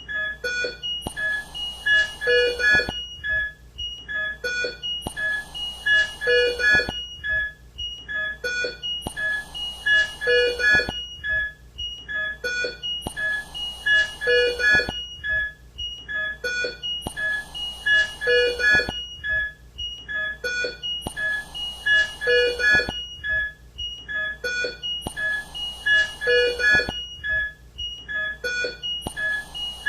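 Intensive-care soundscape: a bedside patient monitor giving repeated short high-pitched beeps over a mechanical ventilator cycling a breath with a rush of air about every four seconds.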